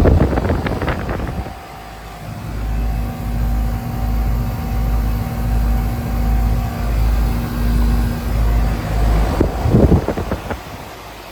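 Two Goodman CK air-conditioner condensing units running together: a steady mechanical hum with a deep, slow throb pulsing about once a second. A rough rushing burst comes at the start and another near the end.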